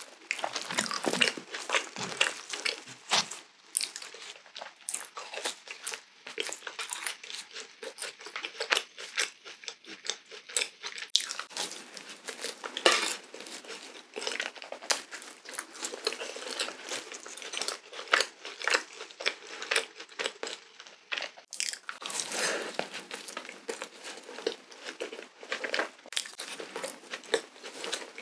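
Close-miked biting and chewing of a glazed Krispy Kreme doughnut: wet, sticky mouth sounds with many small crackles.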